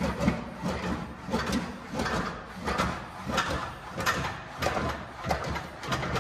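English wheel rolling a sheet-metal panel back and forth between its wheels to stretch it into a curve. It makes a rumbling, scraping metal sound that swells with each pass, in a steady rhythm of a little under two passes a second.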